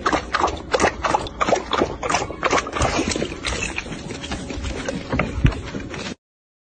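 Rapid, irregular knocking and clattering, several knocks a second, cutting off abruptly near the end.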